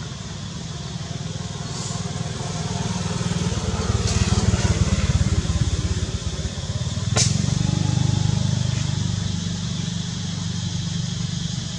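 Motor vehicle engine running close by, its low hum growing louder about four seconds in, dipping, then swelling again before easing off, with a single sharp click about seven seconds in.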